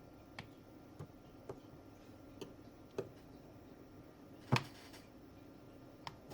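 Light, scattered clicks and taps, about seven over six seconds and irregularly spaced, with the loudest about four and a half seconds in, over a faint steady hum.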